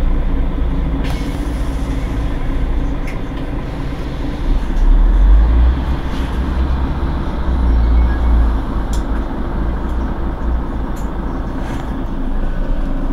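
Mercedes-Benz Citaro G C2 articulated bus running at a standstill, a steady low engine rumble that swells twice, about five and eight seconds in.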